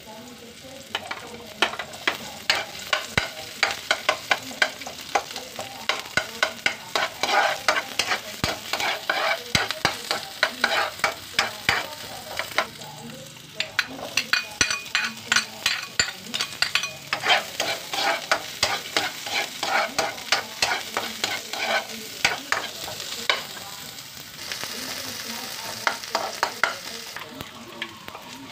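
Sliced garlic and onion sautéing in oil in a steel wok: a steady sizzle under rapid clicks and scrapes of a utensil stirring against the pan, about three or four a second. The stirring pauses briefly before the middle and stops near the end, leaving just the sizzle.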